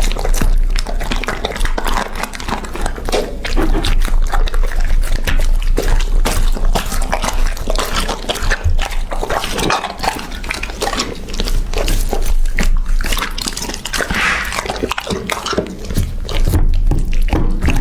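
A dog eating: continuous wet, irregular chewing, smacking and licking sounds close to the microphone.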